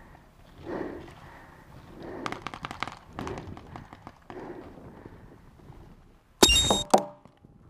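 A pump paintball marker fires once near the end: a loud sharp pop, followed at once by a second clack. Before that come soft thuds about once a second and a brief run of small clicks.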